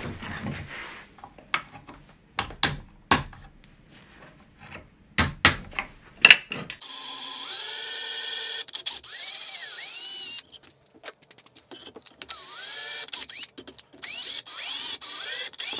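Scattered clicks and knocks, then a cordless drill running for about four seconds as it works a hole in the edge of a birch-plywood plate, its pitch dipping and recovering under load. After a few more clicks, the drill runs again near the end.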